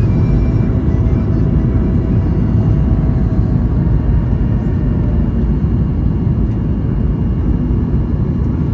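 Steady low rumble of engine and airflow noise inside the cabin of a Boeing 737 MAX 8 airliner.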